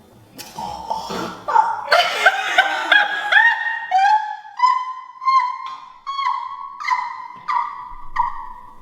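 A person's high-pitched voice making a string of about eleven short squeaky notes, each sliding up and then held briefly, after a breathy rush at the start: a mouth imitation of a sound for the reenact-the-sound challenge.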